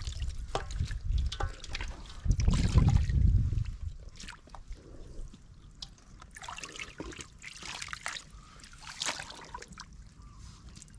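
Shallow pool water sloshing and trickling as a woven bamboo scoop basket and hands move through it, with a louder slosh about two to four seconds in, then lighter splashing and dripping.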